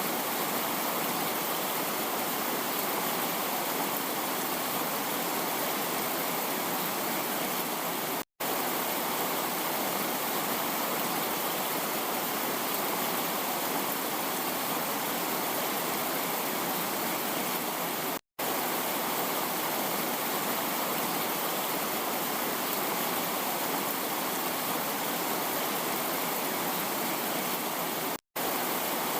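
Heavy rain falling as a steady, dense hiss. It cuts out for an instant three times, about every ten seconds.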